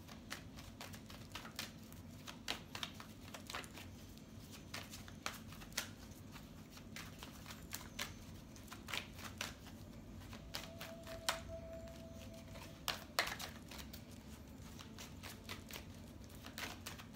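A deck of tarot cards being shuffled by hand, hand over hand, giving a continuous run of faint, irregular card clicks.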